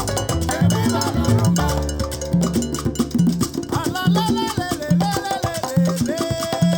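Latin dance music with a steady beat, percussion and a cowbell, played through a Klipsch The One Bluetooth speaker and picked up by microphones in the room.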